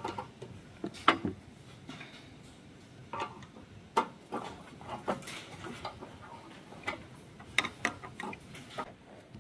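Irregular small clicks and taps of hands and a screwdriver working thermocouple lead wires into a kiln's screw terminal block.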